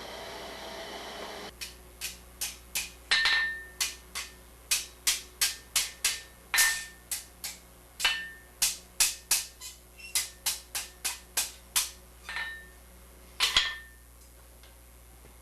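Hand hammer striking steel, about thirty sharp blows at an uneven pace of roughly two a second, some louder and ringing briefly, as hot vine rods are hammered tight around an iron baluster. A steady rushing noise stops about a second and a half in.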